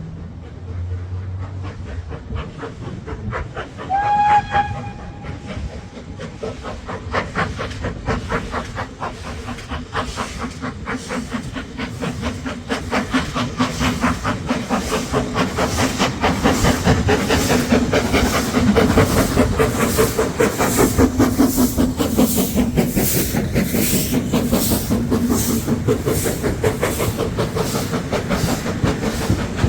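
Steam train: the locomotive's whistle sounds one short note about four seconds in, then a regular rhythmic beat from the train quickens and grows louder as it draws near.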